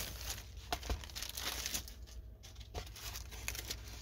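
Clear plastic wrapping on a rolled diamond painting canvas crinkling in scattered crackles as the canvas is handled and unrolled, with a brief lull a little past the middle.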